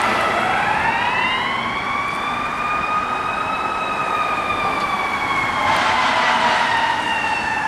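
Fire engine siren sounding a slow wail: the pitch dips at the start, rises slowly to a peak about halfway through, then falls again. A brief rush of noise comes near the end.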